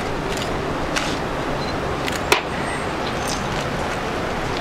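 Steady outdoor background noise of a gathering, with scattered faint clicks and one sharp crack a little over two seconds in.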